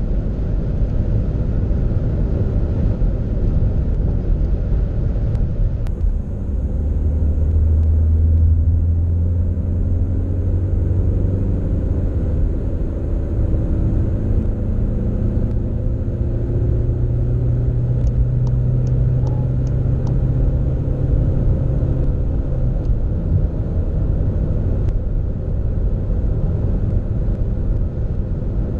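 Cabin sound of a Seat Ateca 2.0 TDI's four-cylinder diesel engine under hard acceleration, over steady wind and tyre noise. After about six seconds the engine drone comes up strongly and rises in pitch as the car pulls in fourth gear. About two-thirds of the way through it breaks for the upshift to fifth and carries on.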